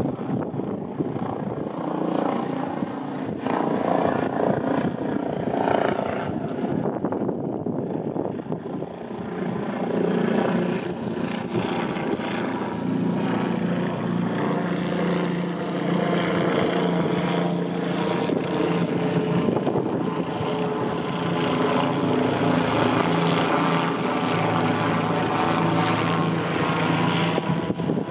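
A steady engine drone, with a low humming tone and its overtones settling in about a third of the way through and holding.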